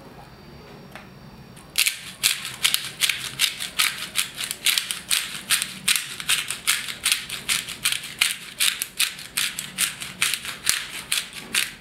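Black pepper being dispensed by hand, a dry rattle repeated in quick even strokes about four times a second. It starts about two seconds in.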